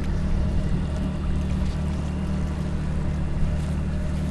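Engine of a small boat running steadily under way, a continuous low drone with a steady hiss over it.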